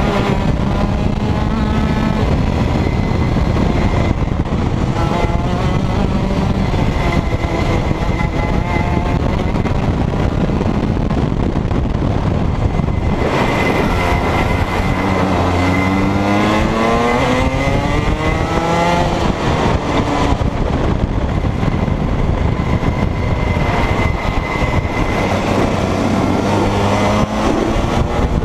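Rotax 125cc two-stroke kart engine running hard under the driver, revs rising and falling through the corners. About 13 seconds in the engine note drops off, then climbs steadily in pitch for several seconds as the kart accelerates out of a corner.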